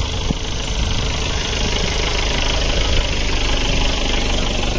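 An engine running steadily at idle, a continuous low rumble.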